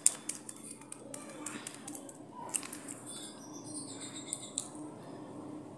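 A toddler eating: small sharp clicks and smacks of chewing, mostly in the first two seconds, over a steady low hum.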